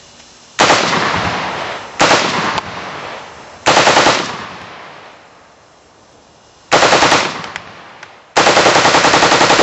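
Heckler & Koch G36 5.56 mm rifle firing five bursts of fully automatic fire, each trailing off in an echo; the last burst is the longest, about a second and a half of rapid shots.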